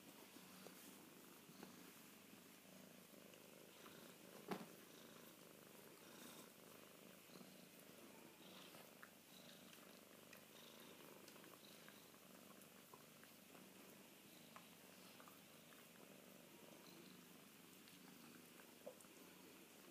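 Cornish Rex kitten purring faintly and steadily, with one sharp tap about four and a half seconds in.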